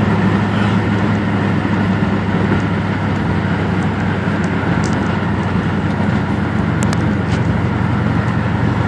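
A Lexus SUV's exhaust leak heard from inside a following car. It makes a steady rapid flapping over engine and road drone, sounding like a card in bicycle spokes. The owner of the following car takes it for blown-out exhaust manifold gaskets.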